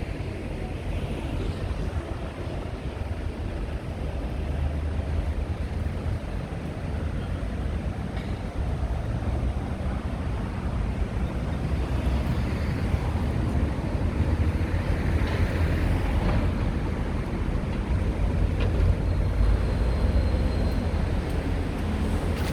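Steady low rumble of vehicle and street noise, rising slightly in loudness over the stretch.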